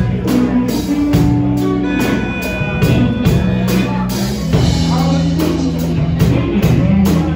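Live blues band playing: electric guitars, bass and drum kit keeping a steady beat.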